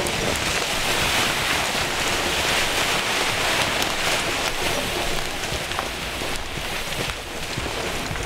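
A log dragged by a Belgian draft horse across the forest floor: a rushing scrape through leaf litter, with small crackles of twigs. It swells about a second in and eases off after about five seconds.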